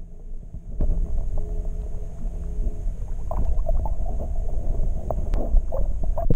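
Muffled rumble and gurgling of water around a camera held underwater in a shallow pond, with a few scattered knocks against the housing.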